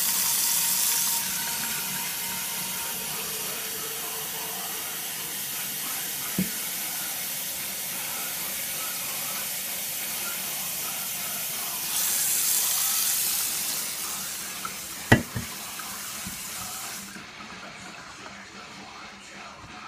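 Kitchen faucet running into a stainless steel sink and then into a glass coffee carafe being filled, a steady rush of water that swells louder twice and cuts off a few seconds before the end. A couple of sharp knocks come just before it stops.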